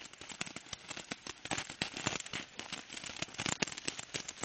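Consumer fireworks popping: many small, rapid pops in an irregular crackle, some louder than others.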